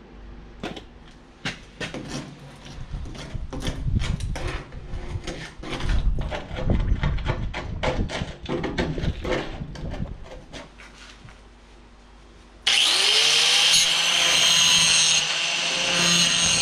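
Irregular scraping and knocking for about twelve seconds, then an angle grinder starts suddenly, spins up with a rising whine, and grinds steadily and loudly into the rusted steel of a dump-truck box.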